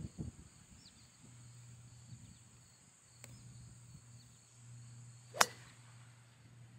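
A single sharp crack of a golf club striking a ball, about five seconds in, over a faint steady low hum.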